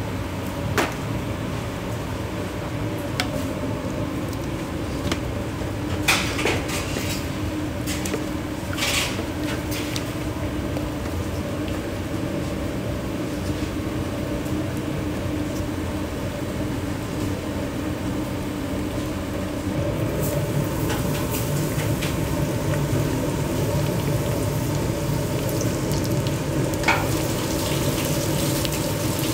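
Commercial kitchen at work: a steady hum with scattered sharp clinks of dishes and utensils, getting louder and busier about twenty seconds in.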